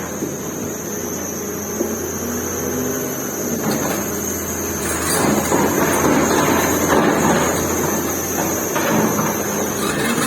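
Excavator working on a building demolition: its diesel engine runs steadily under a rough mechanical working noise. The working noise grows louder about four seconds in and eases near the end.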